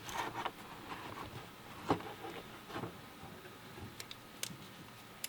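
Scattered soft clicks and brief rustles of a camera and its packaging being handled, about half a dozen, the sharpest click about two seconds in.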